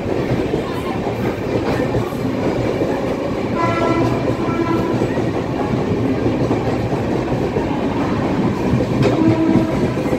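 Express train's passenger coaches rolling past at speed, steel wheels clattering on the rails. A brief horn sounds about four seconds in.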